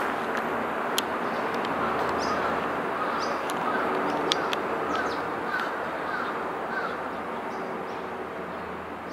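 Crows cawing, a string of short calls repeated roughly every half second, over a steady outdoor background noise. A few brief high bird chirps are also heard, and the whole sound eases down near the end.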